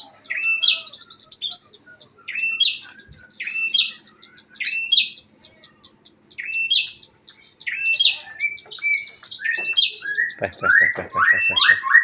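Young velvet-fronted nuthatch calling almost without pause: rapid sharp chips and stepped, sliding notes, breaking into a fast rapid-fire run of repeated notes near the end. This is the 'nembak' (shooting) delivery that bird keepers prize.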